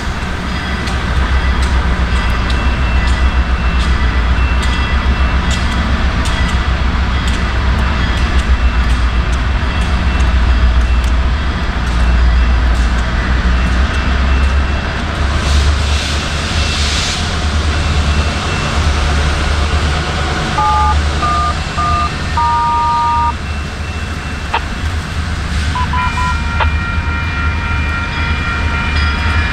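Diesel train rumbling past with a steady low engine drone and thin, faint high tones over it. About 21 seconds in, a horn sounds three short blasts and then a longer one.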